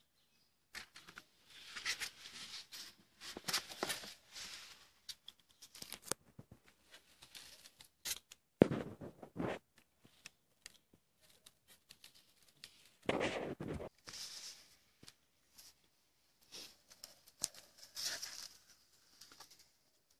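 Irregular scratching and rustling with scattered small clicks, plus two louder, fuller rubbing bursts partway through.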